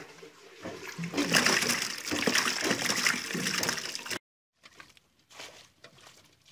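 Small fish and water poured from a metal bucket into a plastic basin of water: a loud splashing, sloshing rush lasting about three seconds that cuts off suddenly. Faint scattered sounds follow.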